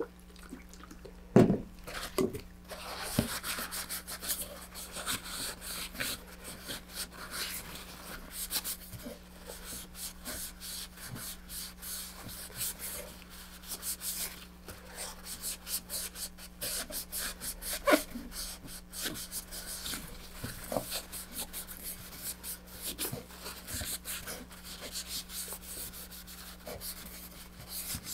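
Paper towel wiping excess epoxy off a fiberglass tube coupler: an irregular dry rubbing and rustling, with a sharp knock about a second and a half in and another near eighteen seconds.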